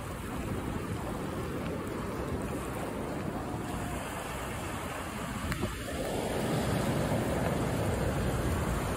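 Small waves breaking and washing up a flat sandy beach, with wind buffeting the microphone; the rush grows a little louder about six seconds in.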